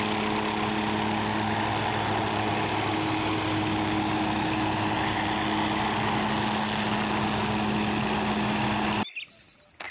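MD 500-series light turbine helicopter hovering low: engine and rotor running steadily with a steady drone. The sound cuts off suddenly near the end.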